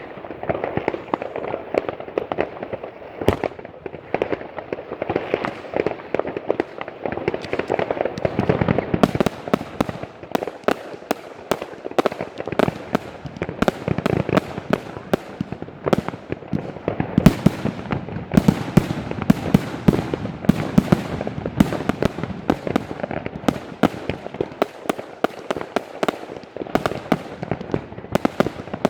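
Multi-shot consumer firework cakes (Extreme Fireworks Flower Power and Woodstock, 18–45 mm calibre) firing a continuous barrage: a rapid stream of shots and bursts over a steady rumble. The shots get denser and sharper from about nine seconds in.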